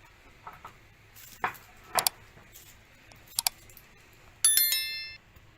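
A few light clicks, then near the end a single bright bell-like chime with several high ringing tones that lasts under a second.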